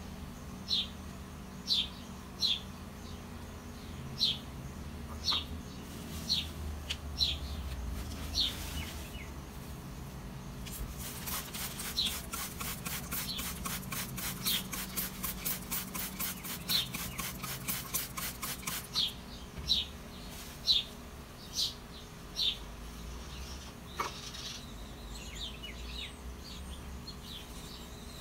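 A bird chirping over and over, one short, high, falling chirp every half second to a second. About eleven seconds in, a trigger spray bottle is pumped in quick strokes, about four hisses a second, for some eight seconds while wetting sphagnum moss.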